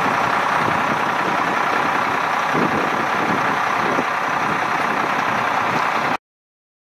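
Detroit Diesel engine of a Pierce Saber pumper fire truck idling steadily; the sound cuts off suddenly about six seconds in.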